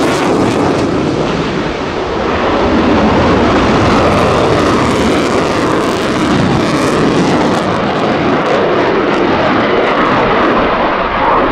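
Lockheed Martin F-35A fighter's single afterburning turbofan jet engine, a loud, steady roar as the jet flies a hard banking turn and low pass overhead.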